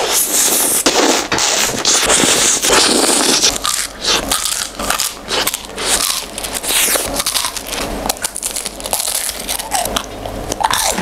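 Close-miked biting and chewing of an ice cream in a crisp wafer cone, the cone crunching in many quick, irregular crackles.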